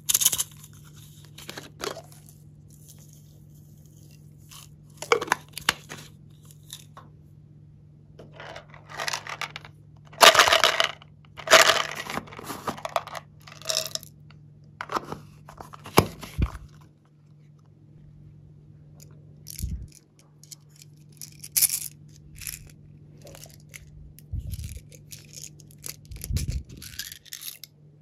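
Small plastic containers being handled and tipped, with beads and sprinkles rattling out onto slime: a string of short crackling, rattling bursts and clicks, the longest about ten to thirteen seconds in.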